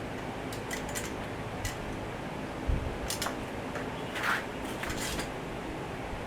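Hand tools working on bolts: scattered short metallic clicks and clinks, a few in quick succession, over a steady background hiss.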